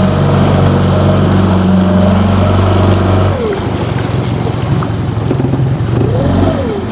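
Boat outboard motor running steadily, then shut off about three seconds in, leaving a rushing noise. A short rising-then-falling tone comes near the end.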